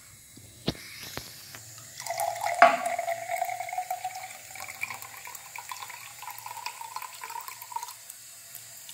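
Water running from a sink tap into a Coca-Cola drinking glass, with a tone that rises slowly as the glass fills. A sharp knock comes about two and a half seconds in, and a fainter one before it.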